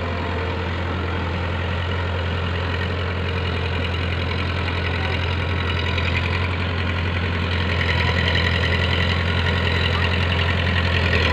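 Powertrac Euro 55 tractor's diesel engine running steadily under load while it pulls a rotavator through a flooded paddy field, growing gradually louder as it approaches.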